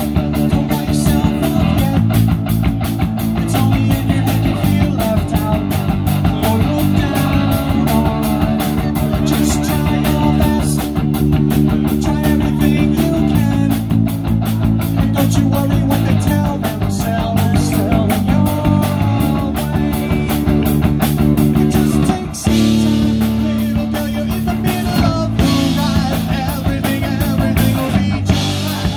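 Live rock band playing: electric guitar and bass guitar over a steady drum-kit beat.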